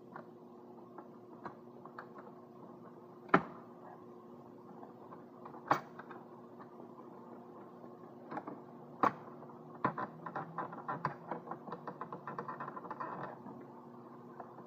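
Hard plastic parts of a car's gear-selector console being handled: a few sharp single knocks, then a run of quick small clicks and taps for a few seconds near the end. A faint steady hum runs underneath.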